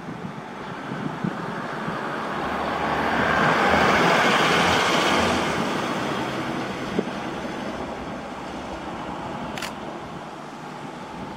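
A vehicle passing by: its noise rises to a peak about four seconds in and slowly fades, with a short sharp tick near the end.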